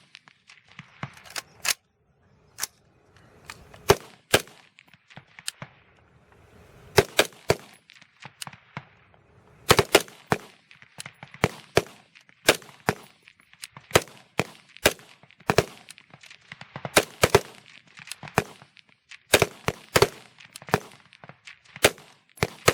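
Rapid-fire string on a rifle range: many AR-15-type service rifles firing along the line. Dozens of sharp, irregular shots, some close and loud, others fainter, often overlapping, several a second at the busiest moments.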